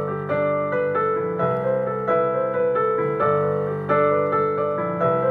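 Piano playing an instrumental break in a song: a steady stream of struck notes and chords, a new one about every half-second.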